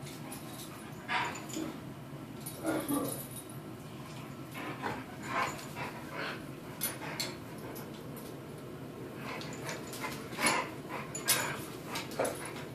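Huskies vocalizing as they play-fight: about ten short calls in scattered bursts, one dropping in pitch about three seconds in.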